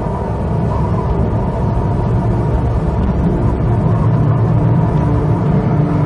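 Steady deep rumble of an approaching thunderstorm and its wind, continuous and without separate thunderclaps.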